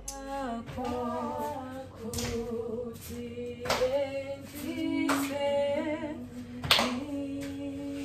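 Voices singing a cappella in harmony, with a hand clap about every second and a half on the beat.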